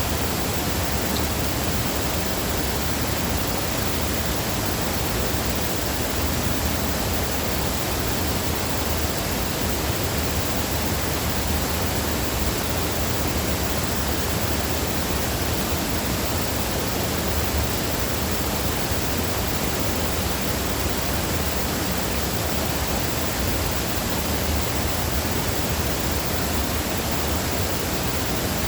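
Small waterfall: water falling and splashing in a steady, unbroken rush.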